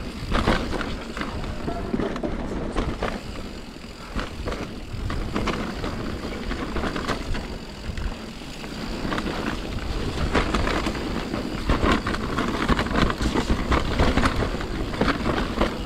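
Santa Cruz Nomad full-suspension mountain bike descending a wet dirt trail: tyres rolling over mud and roots, with the bike rattling and knocking over the bumps and a steady low rush of wind on the microphone.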